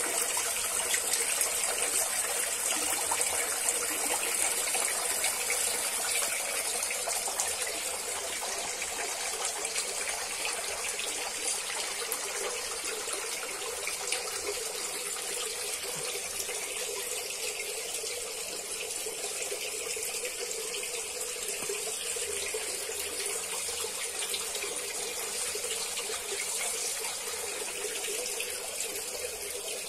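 A stream of water pouring and splashing steadily into a small koi pond, a little quieter in the second half.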